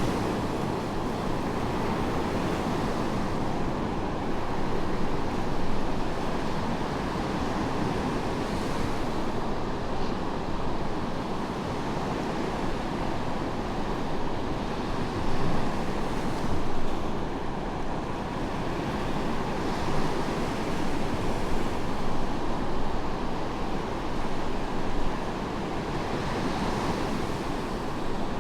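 Medium surf breaking on a sandy beach: a steady wash of waves with swells every few seconds.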